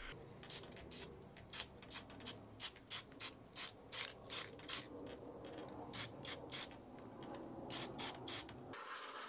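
Aerosol spray can giving a string of short spurts, two or three a second, with a pause of about a second partway through.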